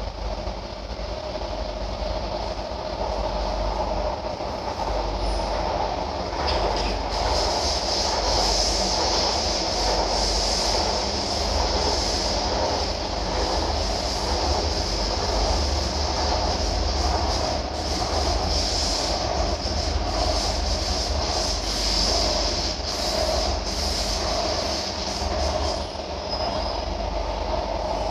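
C151B metro train running, heard inside the passenger car: a steady rumble of wheels and running gear on the track. A louder high hiss joins about seven seconds in and carries on.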